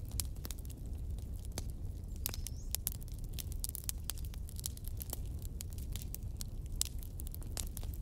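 Bonfire of burning firewood crackling, with frequent irregular sharp pops and snaps over a low steady rumble.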